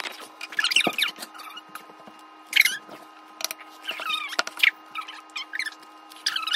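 Short, high-pitched squeaks, about eight of them at irregular moments, over a faint steady hum.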